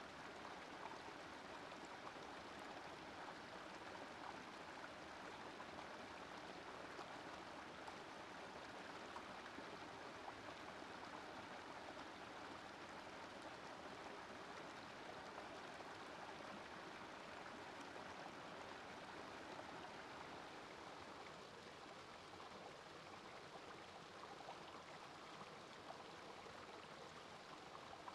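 Small rocky woodland brook running over stones in little cascades: a faint, steady rush of water that turns slightly softer about three-quarters of the way through.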